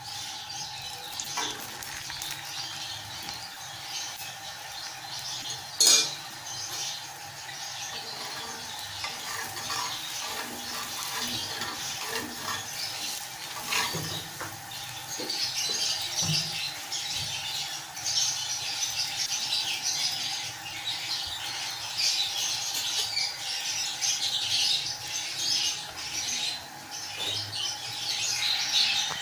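Oiled paratha sizzling as it fries on a hot iron tawa, the hiss growing louder about halfway through. There is a single sharp knock about six seconds in.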